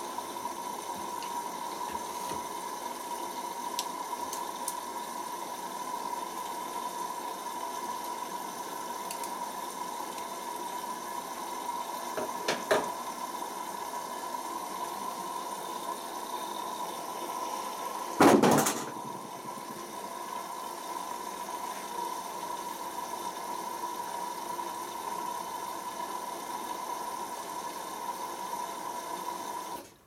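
Hoover Optima OPH714D washing machine filling with water through its inlet valve at the start of the wash, with the drum standing still: a steady rushing hiss with a faint whine. There is one loud thump about eighteen seconds in, and the water flow cuts off suddenly near the end as the fill valve closes.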